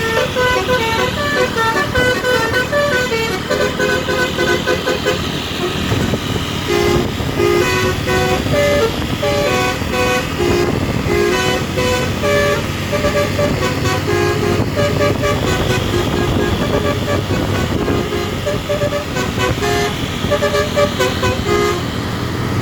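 Bus telolet basuri horn playing a tune: a long run of short musical horn notes stepping up and down in pitch, with a low rumble underneath.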